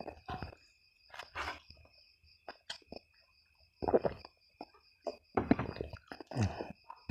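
Close-miked chewing and wet mouth sounds of a person eating, in irregular bursts, the loudest about four seconds in and again near the end. A faint steady thin high tone runs behind throughout.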